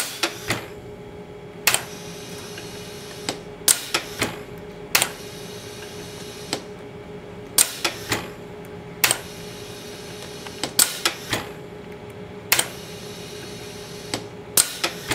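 Toroid hook-winding machine running as it winds wire onto a small core: a steady hum under sharp, irregularly spaced clicks from the hook and winding-head mechanism, some coming in quick groups of two or three.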